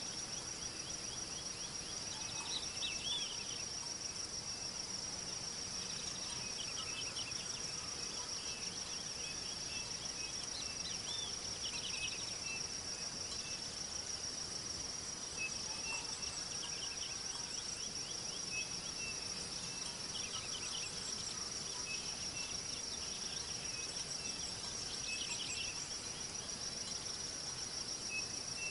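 Insect chorus: a continuous high-pitched trill, with groups of shorter chirps coming and going throughout.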